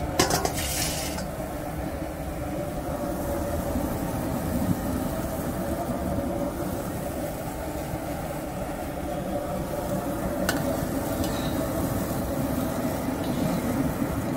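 Squash and greens bubbling in liquid in a steel wok over a burner: a steady rumbling hiss. A short clatter comes just after the start and a single click about ten seconds in.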